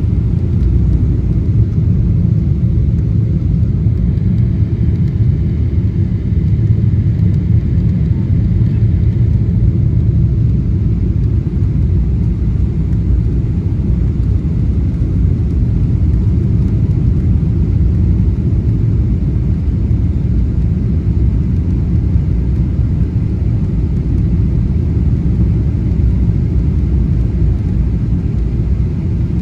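Steady low rumble of airliner cabin noise, engines and rushing air heard from inside the cabin during the approach.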